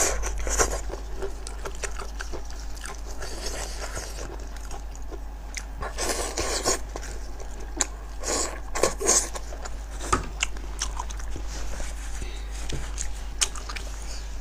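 Close-up eating of a braised sheep's head: wet chewing and biting of meat pulled off the bone, in irregular bursts that are loudest about six and nine seconds in.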